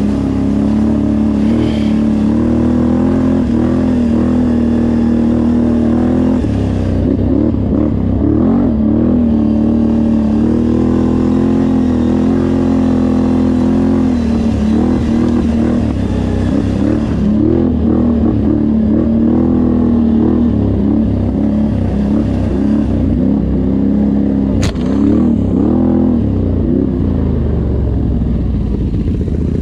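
Off-road vehicle engine running under way, its note rising and falling with the throttle, with one sharp click about three-quarters of the way through.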